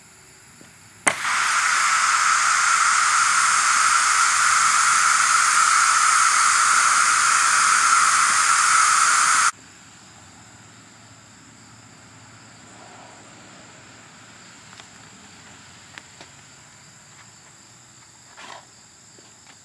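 Compressed air blasting through a home-made coffee-creamer dust cannon: a sharp click as the air is let go, then a loud, steady hiss for about eight seconds that cuts off abruptly.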